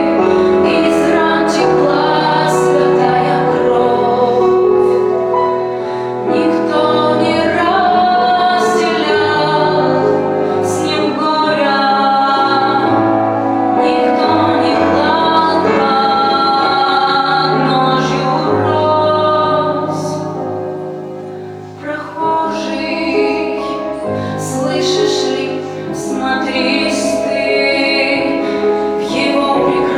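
Music: a woman singing a song with sustained notes over a steady instrumental accompaniment and a moving bass line.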